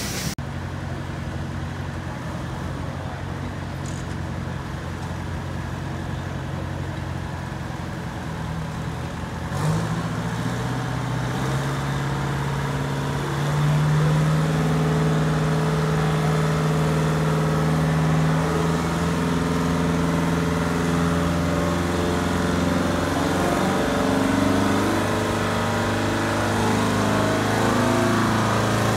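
A steady machine hum, then about ten seconds in the engine of an antique farm tractor working hard under load as it pulls a weight sled. Its pitch steps up and is held high for most of the rest, getting louder a few seconds after it starts.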